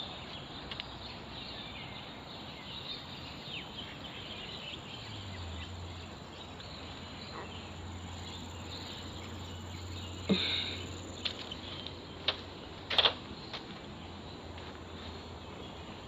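Insects buzzing steadily. A faint low hum comes in about five seconds in, and a few short, sharp sounds stand out around ten and thirteen seconds in.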